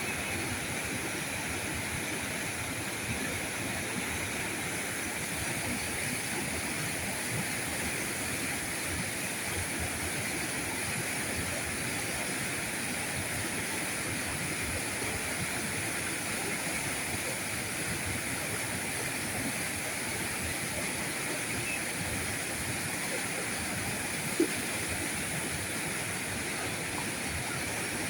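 River current flowing steadily, an even rushing of water with no change in level. A single short click comes near the end.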